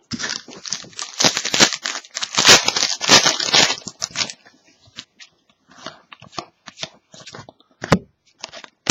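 Trading card pack wrapper crinkling and tearing for about four seconds, followed by scattered light rustles and clicks of cards being handled.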